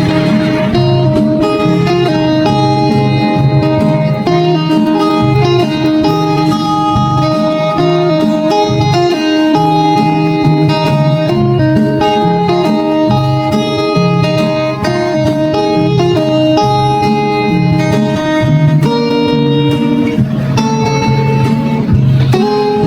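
Background music: a plucked guitar melody over a steady bass line.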